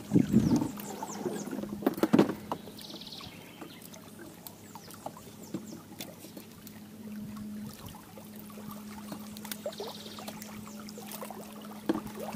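Clicks and knocks of a small snook being unhooked from an artificial lure with pliers in an aluminium boat. There is a louder knock near the start and another about two seconds in, over a steady low hum.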